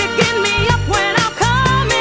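Disco music with a steady beat under a deep bass line and a gliding melody.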